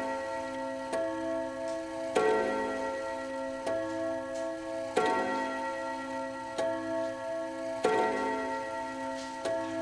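Antique Junghans wall clock's two-note gong counting the hour. Its two notes strike in turn, louder and softer, about every one and a half seconds, and each strike rings on into the next, over the ticking of the brass pendulum movement.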